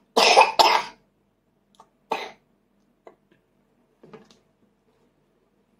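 A person coughing: a loud double cough right at the start, then a single shorter cough about two seconds in.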